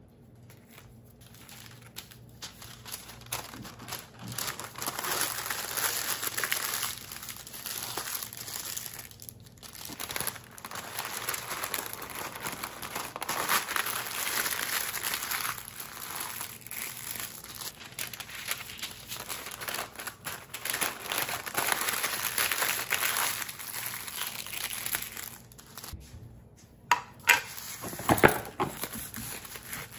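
Brown paper crinkling and rustling in stretches as hands fold it around breakfast muffin sandwiches, with a few sharp knocks near the end.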